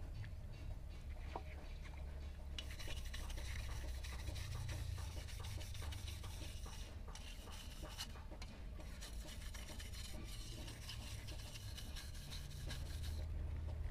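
Steel wire hand brush scrubbing a wet, blackened brass letter, a dense scratchy rasp. It starts a couple of seconds in, breaks off briefly twice and stops near the end.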